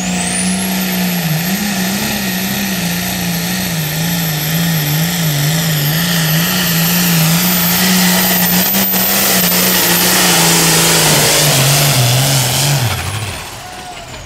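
Allis-Chalmers 220 pulling tractor's engine running hard under full load down the track, its pitch wavering up and down as it works, with a high whine that rises about a second in and holds. Near the end the engine drops off and the sound falls away as the run ends.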